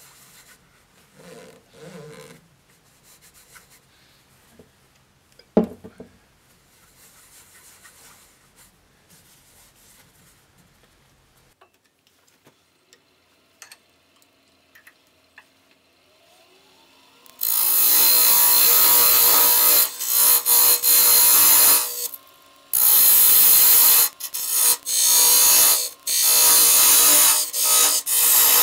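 Record Power wood lathe spinning up with a rising motor whine, then a turning tool cutting into the spinning wood in loud passes with short pauses between them. Before that, a cloth rubbing oil onto a turned wooden candleholder, with one sharp knock.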